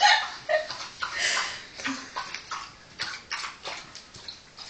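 A beagle scuffling and bucking about: a run of short scrapes and clicks, with a breathy burst a little over a second in.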